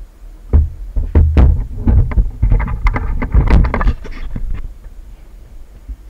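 Wooden frame being handled and set onto a wooden cage frame: a run of knocks and low bumps of wood on wood with some scraping, quieter after about four seconds.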